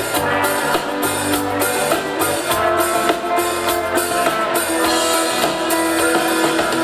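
A live rock band plays an instrumental passage: acoustic and electric guitars, electric bass and drum kit keep a steady beat, with no singing.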